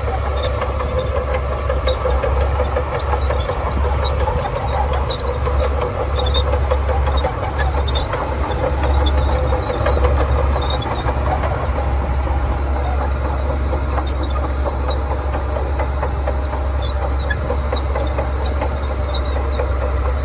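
Shantui DH17C2 bulldozer's diesel engine running steadily at work, a deep continuous rumble with no pauses.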